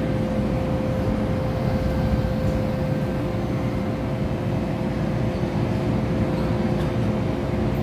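Steady low rumble of an MTR M-Train with a constant mid-pitched hum over it; the pitch holds steady throughout.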